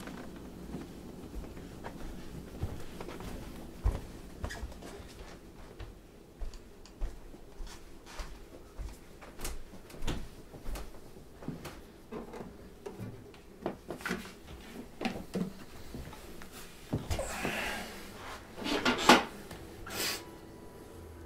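Footsteps and small knocks and clicks of a person moving about a room, with a door being handled. Near the end, a rustle followed by a loud knock as he sits down with a guitar.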